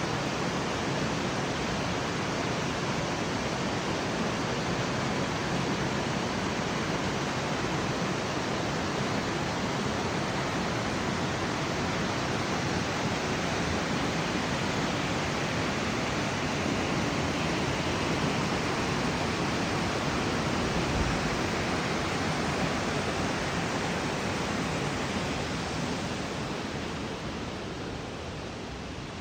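Kamadaru waterfall on the Kawazu River pouring steadily, a dense, even rush of falling water. It grows somewhat quieter near the end.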